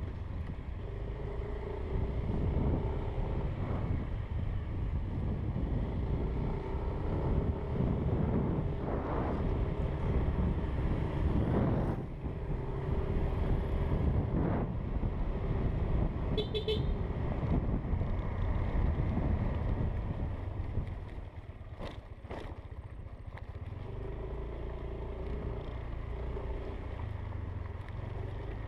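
Yamaha Aerox scooter on the move: engine running with wind rushing over the microphone. It gets quieter about three-quarters of the way through.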